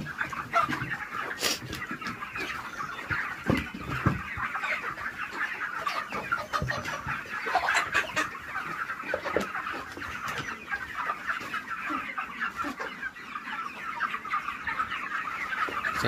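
A large flock of white broiler chickens clucking and cheeping together in a continuous, dense chatter, with a few short clicks scattered through it.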